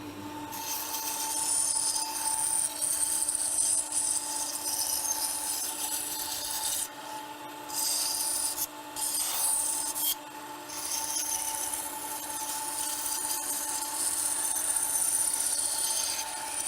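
Bandsaw running and cutting curves and relief cuts in a wooden board: a steady motor and blade hum under the hiss of the blade in the wood. The cutting hiss drops out briefly twice, about seven and ten seconds in, as the blade comes clear of the wood.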